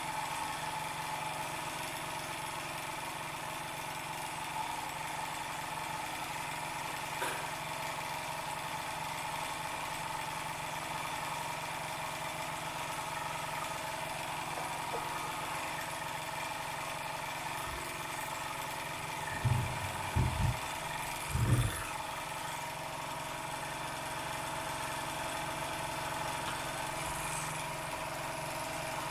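Wilesco D20 toy steam engine running steadily under steam. A few low thumps come about twenty seconds in.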